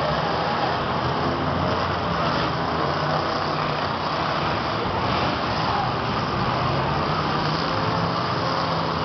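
Engines of several stripped-down figure-8 race cars running together as they circle the dirt track. A steady, dense engine sound with no breaks.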